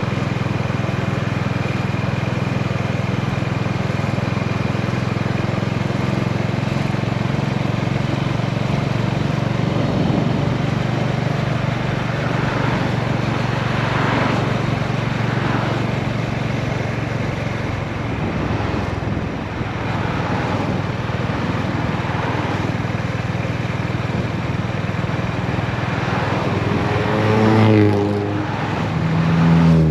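Honda GB350's single-cylinder engine running steadily on the move, with the rush of wind over it. Near the end the engine note swells briefly.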